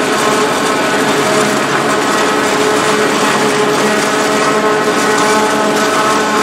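John Deere self-propelled forage harvester cutting standing corn at close range, its engine and cutterhead running loud and steady with a constant droning tone over dense mechanical noise.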